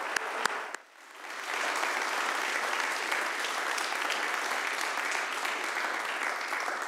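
A few single hand claps close to the microphone. Then, about a second in, a congregation joins in with steady applause that dies away near the end.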